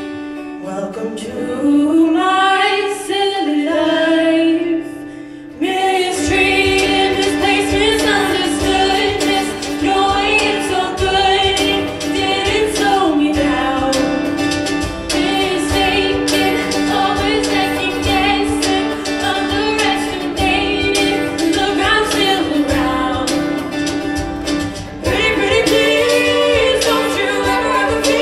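Female show choir singing a pop song: two girls sing solo lines into microphones over a held note, then about six seconds in the full choir comes in with the band and drums.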